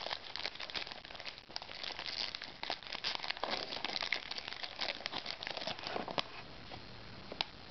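Baseball card pack wrapper crinkling and crackling as it is torn open and handled, with many small sharp crackles; it quiets down near the end.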